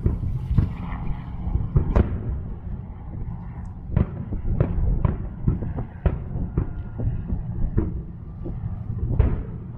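Aerial firework shells bursting: a string of booms about a second apart, some louder than others, over a constant low rumble.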